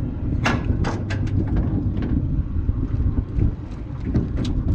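Wind rumbling on the microphone over the sea, with several short splashes and knocks as a hooked albacore tuna is hauled up against the side of a small boat, the loudest about half a second in.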